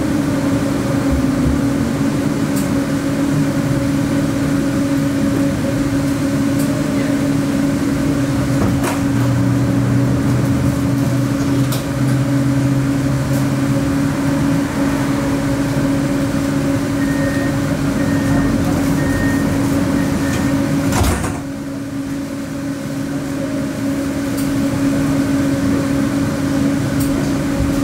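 Riding inside an electric tram: a steady hum from the drive over rolling noise. A few short high beeps sound a little past halfway, then a sharp knock about three-quarters through, after which it is quieter for a few seconds.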